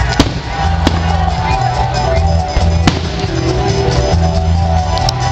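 Loud amplified concert music with a heavy bass beat, cut by several sharp firework bangs: one right away, another within the first second, one about three seconds in and a quick pair near the end.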